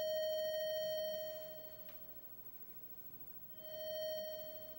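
Commodore SX-64's SID sound chip playing a steady buzzy pulse-wave test tone on voice 3. The first tone starts at full level, holds about a second, then fades out slowly: the sustain and release test. About three and a half seconds in, the same tone swells up and dies away: the attack and decay test.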